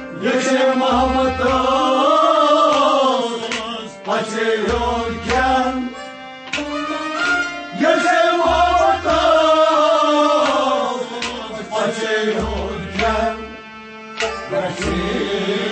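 Traditional devotional folk song: a man singing long, bending held phrases, accompanied by a plucked string instrument and regular hand-drum beats.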